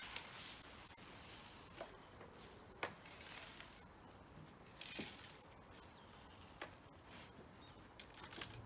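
Faint rustling and scraping of dry bird food, with a few light clicks, as a bird feeder is dipped into it to refill.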